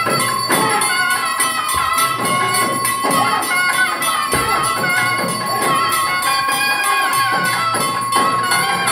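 Loud traditional dance music: a wavering melody over a steady held note, with jingling percussion keeping the beat.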